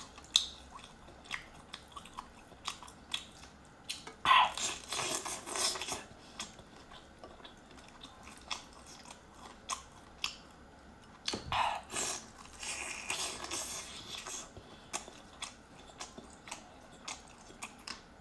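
Close-miked eating of a large cooked prawn: wet chewing, with the shell cracking and crackling as it is pulled apart by hand. Many small clicks throughout, with two louder spells of crackling, about four seconds in and again around eleven to fourteen seconds.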